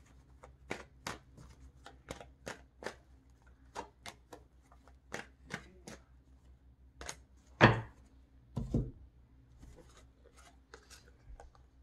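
Tarot deck being shuffled by hand: an irregular run of short card taps and flicks, a few a second, with one louder knock about eight seconds in.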